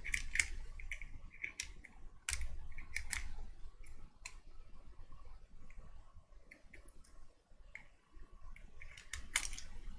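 Irregular clicks, taps and scrapes of hard plastic parts of a small USB water mister being handled and pried at, with a duller knock about two seconds in and a quick flurry of clicks near the end.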